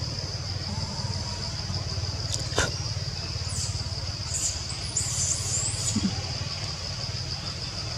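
Tree-canopy outdoor background: a steady high-pitched insect drone over a low rumble, with one sharp click about two and a half seconds in and a few brief high squeaks or chirps in the second half.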